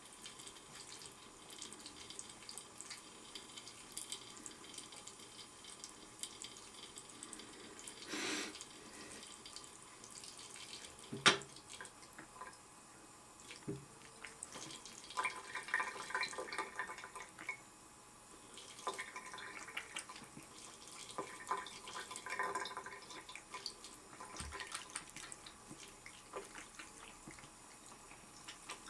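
A tap running into a sink, with a single sharp knock about eleven seconds in.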